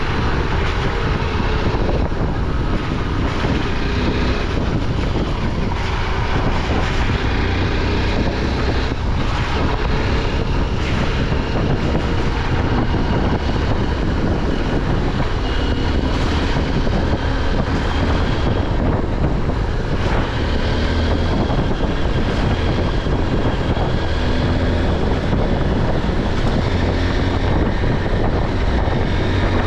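Motorcycle engine running under way, its note shifting a little, with wind buffeting the microphone throughout.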